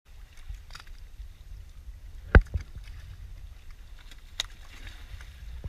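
Low steady rumble with a sharp knock a little under halfway through, a smaller knock just after it, and a light tap near the end.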